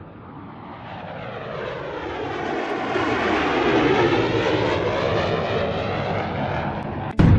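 Jet-flyby whoosh sound effect for an animated title card: it swells steadily louder for about four seconds with a sweeping, swirling shimmer, then holds. Near the end it breaks off into a sudden deep boom.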